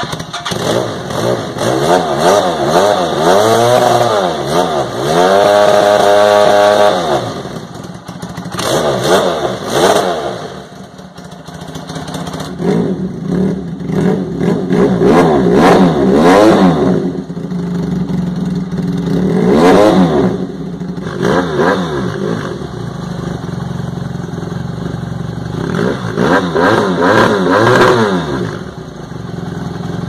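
Motorcycle engine revved again and again through aftermarket universal slip-on mufflers. It idles steadily between several sharp blips of the throttle that rise and fall in pitch.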